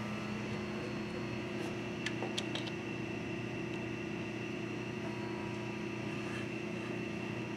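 Steady electrical machine hum in a metal shop, holding several constant tones, with a few faint light ticks about two seconds in.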